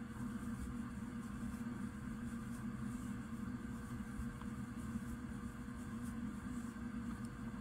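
Steady low background hum that holds unchanged throughout, with no other sound standing out.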